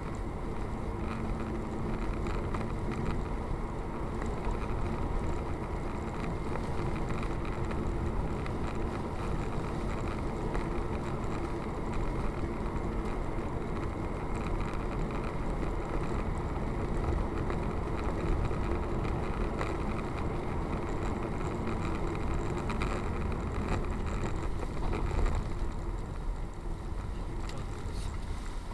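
Steady road and engine noise of a moving car, heard from inside the cabin through a dashcam's microphone.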